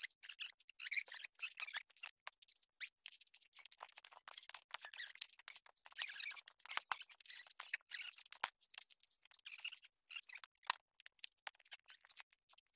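Coconuts being husked by hand on a metal husking spike: the fibrous husk tearing and crackling as it is pried off, in quick irregular scratches and snaps.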